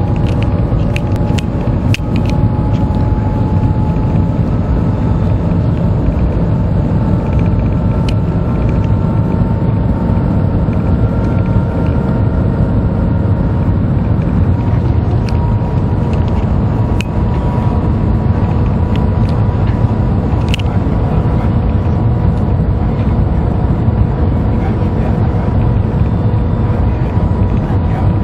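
Shanghai Transrapid maglev train running at speed: a steady, loud rumble with faint whining tones that drift slightly upward, and a few sharp clicks.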